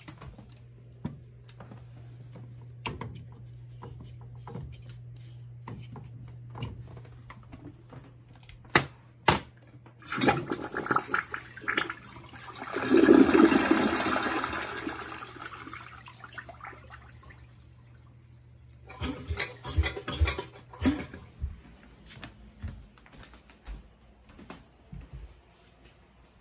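American Standard VorMax toilet flushing: a rush of water swirling through the bowl starts about ten seconds in, swells to its loudest a few seconds later and drains away over several seconds. Before it there is a steady low hum with two sharp clicks; after it comes a cluster of knocks and clatter.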